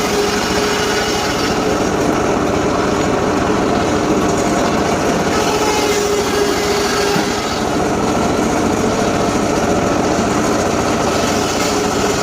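Homemade circular saw rig running steadily while its blade rips gmelina timber.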